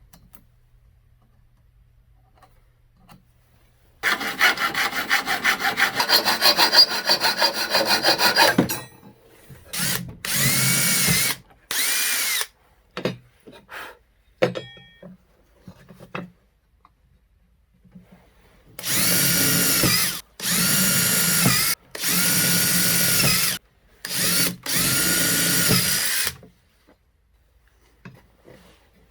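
Power drill running in short trigger bursts on wood: one longer run of about four seconds, then two short bursts and, later, four bursts in a row, the motor's pitch rising as it spins up and falling as it stops in each.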